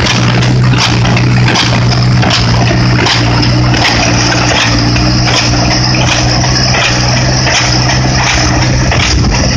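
New Holland small square baler running behind a tractor, its plunger knocking in a steady rhythm a little more than once a second over the constant drone of the tractor engine and the rattle of the baler's chains and pickup.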